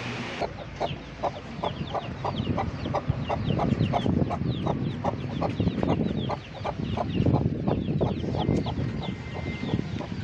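Aseel chickens clucking in a steady run of short calls, about three a second, mixed with many high, falling peeps from chicks.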